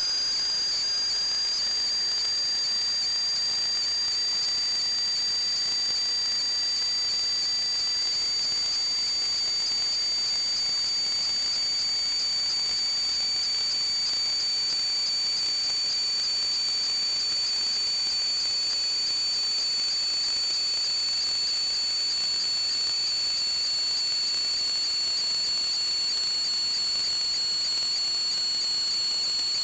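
Steady high-pitched whistling over a hiss, with a second, lower whistle slowly rising in pitch.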